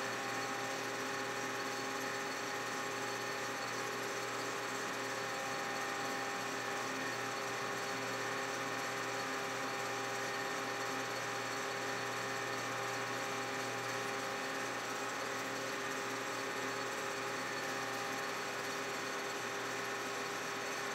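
Metal lathe running during keyway cutting: a steady mechanical whir with a low hum, unbroken and without separate strokes.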